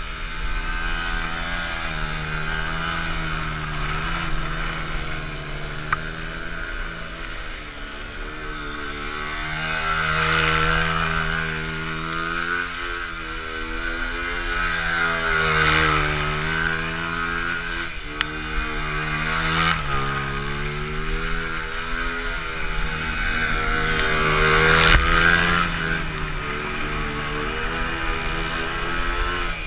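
Small single-cylinder four-stroke Honda dirt bike engines revving up and down over and over during burnouts and donuts, the revs rising and falling every few seconds with several louder surges.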